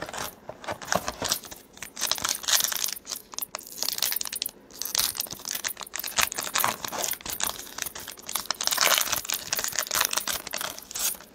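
Trading-card pack's foil wrapper being torn open and crinkled by hand, an irregular crackling and ripping.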